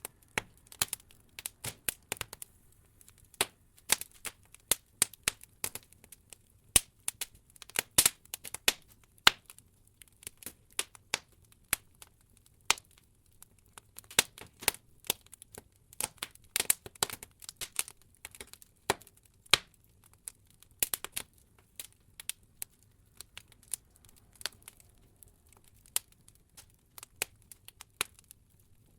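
Wood logs burning in an open fireplace, crackling with irregular sharp pops and snaps, several a second.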